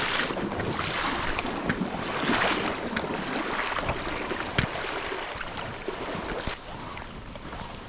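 Small creek's water running and splashing, swelling in surges, with a few sharp clicks.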